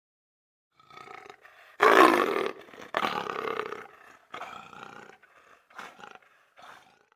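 Leopard calling: a series of roars, starting with a soft one, then the two loudest about two and three seconds in, then shorter, quieter calls that trail off.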